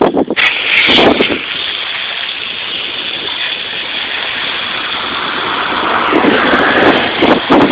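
A hard jet of water hisses steadily onto an aluminum wheel, rinsing off aircraft paint stripper and the softened clear coat. It starts after a couple of short knocks and grows louder toward the end.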